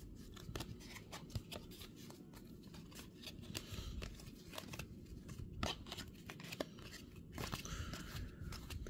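A stack of baseball trading cards being flipped through by hand, the cards sliding and snapping against each other in irregular soft clicks and ticks, with a few sharper ones.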